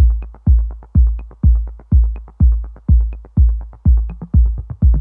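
Electronic dance music: a deep kick drum beating steadily about twice a second, with lighter ticks between the beats.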